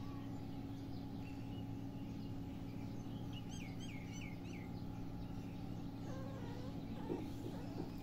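Steady low hum and outdoor background noise, with a bird calling a quick run of about five falling chirps around the middle.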